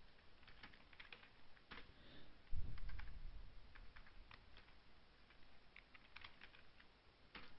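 Computer keyboard being typed on: faint, scattered key clicks as a few words are entered. About two and a half seconds in there is a louder, dull low thump.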